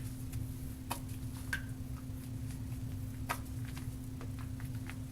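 Faint wet clicks and ticks from a shaving brush and its lather being squeezed and worked by hand, a few of them sharper, over a steady low hum.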